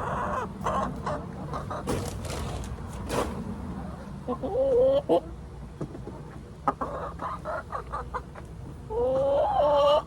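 Backyard hens clucking, one giving loud drawn-out squawking calls about four seconds in and again near the end, amid scattered knocks and rustles.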